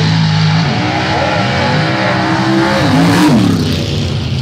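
Race car engines running, one revving up in rising pitch and peaking loudest about three seconds in before easing off.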